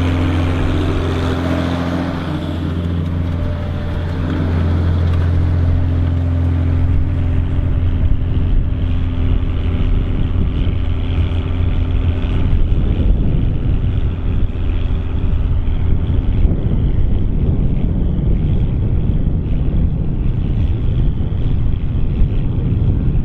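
Volvo BM tractor's diesel engine running steadily while pulling a plough. About seven seconds in, its even tone gives way to a rougher, noisier low rumble.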